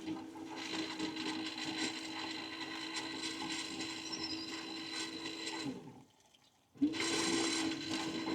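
RV macerator pump running steadily as it pumps gray water out through the drain hose. It winds down about six seconds in, and after a short silence it starts up again.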